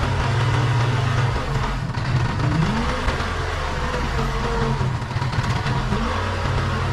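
Case 580 Super K backhoe loader's diesel engine running under working load, its pitch dipping and then climbing back twice as the hydraulics take load, with a fainter whine sliding up and down above it.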